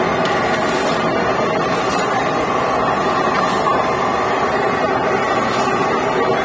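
Steady, loud background din of a busy trade-show hall, an even wash of noise with no single clear sound standing out.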